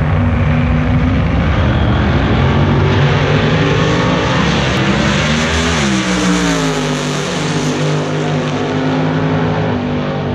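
Drag race car engine at full throttle, loud and steady, its pitch sliding down about halfway through as the car passes, then running on at a lower pitch.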